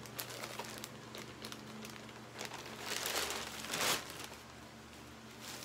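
Plastic packaging crinkling and rustling as a T-shirt is unwrapped from its bag, with scattered small crackles and the loudest rustle about three to four seconds in.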